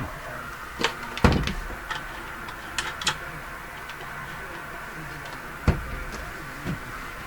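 Bench handling noise: a series of sharp clicks and knocks as small parts and clip leads are moved and connected. The loudest knocks come about a second in and just before six seconds, over a steady background hiss.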